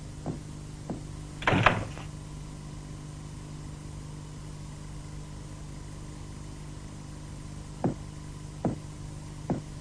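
A few soft knocks, and one louder knock with a brief rattle about a second and a half in, over a steady low hum. Three more soft knocks come near the end.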